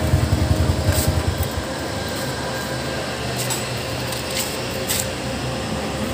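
Small motorcycle engine idling as a pulsing low rumble that drops away about a second and a half in. A steady hum and a few light clicks remain.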